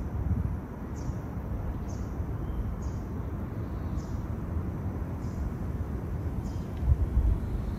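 Outdoor ambience: a steady low rumble with a faint, short high chirp repeating about once a second.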